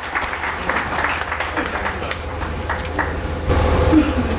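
Audience applauding, the clapping thinning out about three seconds in; near the end a louder low hum comes up through the sound system.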